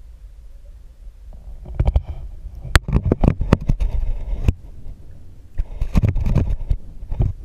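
Muffled low rumbling of water heard through an underwater camera's housing, broken by two spells of sharp knocks and scrapes against the housing, the first starting about a second and a half in, the second near the end.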